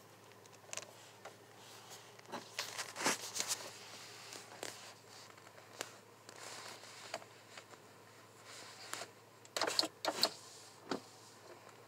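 Faint scattered clicks and rustles of handling inside a stationary car, over a low steady hum, with a quick run of sharper clicks about ten seconds in.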